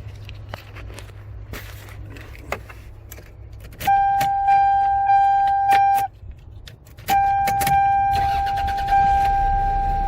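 Keys jangling and clicking, then a car's warning chime set off by the key in the ignition: a steady high tone re-struck about every half second, breaking off for a second about two-thirds of the way through and starting again.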